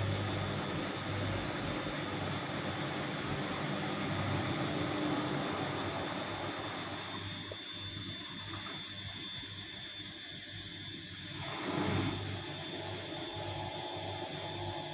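Vestel CM8710 front-loading washing machine running a wash cycle: a steady mechanical hum and whoosh with a low hum that pulses in an even rhythm, thinning out for a few seconds and swelling briefly near the end.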